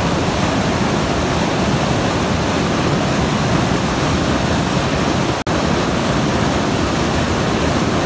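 Rushing white water of a rocky mountain stream and small waterfall, a steady dense rush, with a split-second gap in the sound about five and a half seconds in.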